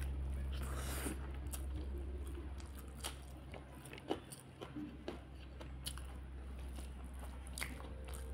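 Close-up wet chewing and sharp mouth clicks from eating curry-mixed rice by hand, with sticky squishes of fingers kneading the rice, over a steady low hum.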